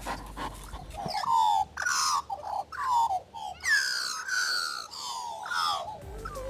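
A string of short, high animal calls, about a dozen, each gliding down in pitch, starting about a second in and stopping shortly before the end.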